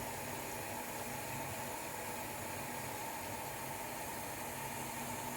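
Pot of thuthuvalai herbal rasam coming to the boil on the stove: a steady, even hiss.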